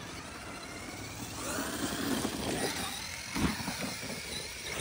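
Large Traxxas electric RC monster truck driving over dirt: its brushless motor whines, the pitch rising and falling with the throttle, over the noise of the tyres, with a knock about three and a half seconds in.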